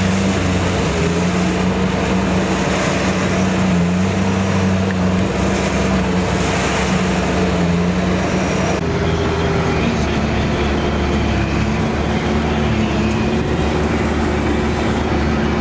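Sherp ATV's small diesel engine running steadily under way, a constant drone heard from inside the cab. The engine note changes suddenly about nine seconds in.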